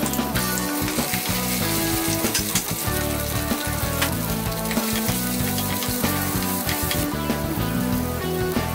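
Hot oil sizzling steadily as green chillies fry in a clay cooking pot, with fresh tomato pieces tipped into the hot oil within the first few seconds. The sizzle is interspersed with small crackles and plays under background music.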